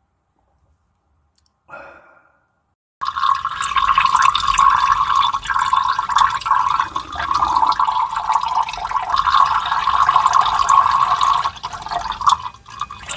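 Liquid poured in a steady stream into a glass, a continuous splashing gurgle that starts about three seconds in and trails off near the end, after a brief faint splash.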